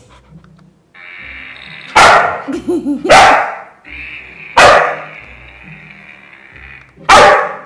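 Samoyed barking loudly, four separate barks, over background music.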